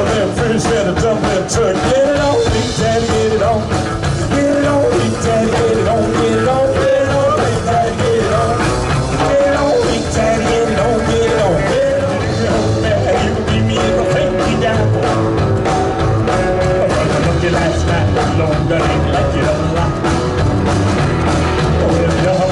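Rock and roll band playing live with a steady beat and a wavering melody line over it.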